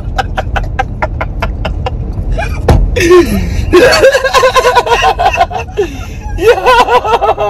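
A man and a woman laughing hard together inside a moving car. It starts as quick, chopped bursts about five a second, then turns into high-pitched, whooping laughter from about three seconds in, over the car's low road rumble.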